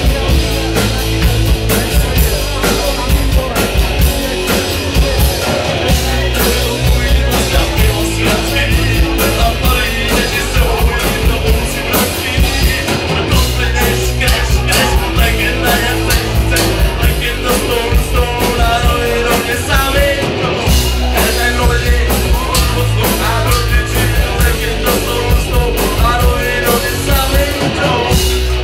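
Live band playing loudly through a club PA, with a lead singer over a steady drum beat and heavy bass.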